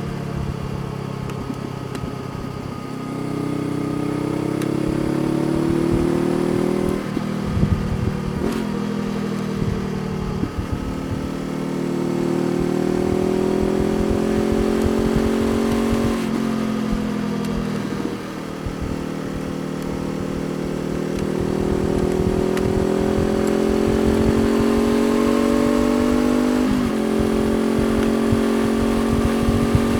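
Honda CBR500R's parallel-twin engine under way, its pitch climbing steadily through each gear and dropping sharply at each of several gear changes.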